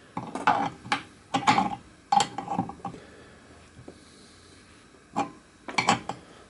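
Adjustable spanner working on a brass boiler fitting: a run of sharp metal clinks and scrapes in bunches, a pause in the middle, then a few more clinks near the end.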